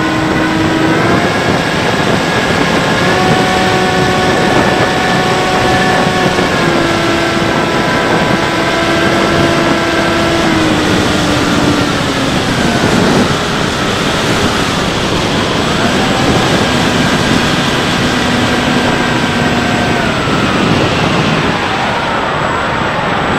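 Bixler 3's electric motor and pusher propeller whining over steady wind rush on the onboard microphone. The whine steps up and down in pitch with the throttle, falls away about twelve seconds in, comes back a few seconds later, and slides down near the end.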